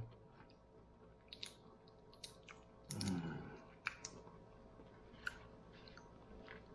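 Faint, irregular clicks and crackles of cooked shell-on shrimp being peeled by hand. A short low murmur from a voice comes about three seconds in.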